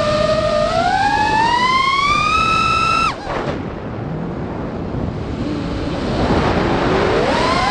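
FPV quadcopter's brushless motors whining, rising steadily in pitch as the throttle is pushed up, then cut off sharply about three seconds in as the quad flips over. A rougher, rushing sound follows, and the motor whine glides back up near the end as throttle returns.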